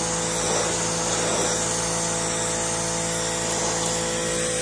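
Greenworks Pro 3000 psi electric pressure washer running steadily under load: the steady hum of its brushless motor and pump over the hiss of the water jet stripping old stain off wooden deck boards.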